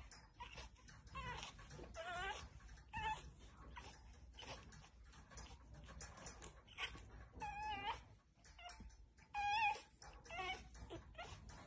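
Pug puppy whining and crying in a string of short, wavering high-pitched whines, the loudest one near the end.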